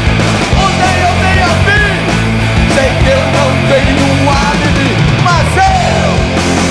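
Rock band playing live: electric guitars, bass guitar and drums.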